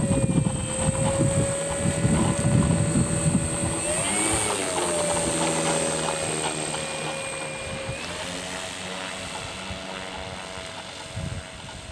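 Top-Flite Cessna 182 RC model plane's motor and propeller running steadily as it taxis, its pitch rising briefly about four seconds in and again about eight seconds in, then fading as the plane moves away.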